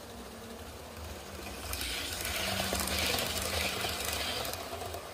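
Hornby OO gauge Class 390 Pendolino model train running past close by: a rattling rush of its wheels on the track, with a low motor hum, swelling from about two seconds in and fading about three seconds later.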